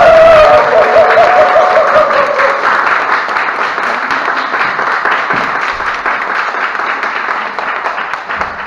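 An audience of dancers applauding, the clapping loud at first and slowly dying away. A long wavering tone sounds over the clapping for the first couple of seconds.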